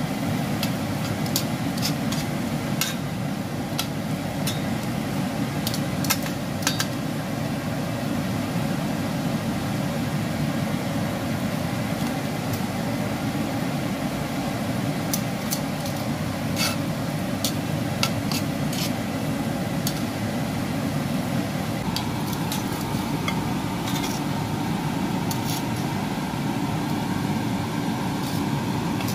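Corn kernels frying in a pan over a steady low hum, with metal tongs clicking and scraping against the pan every so often.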